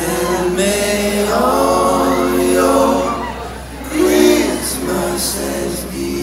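Three men singing a cappella in close harmony around one microphone, holding long notes together in several parts.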